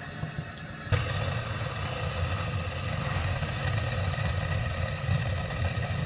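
Shop vac motor running steadily, its hose on the air conditioner's condensate drain line, sucking the line to pull out rust and crud. The sound jumps abruptly louder about a second in and then holds steady.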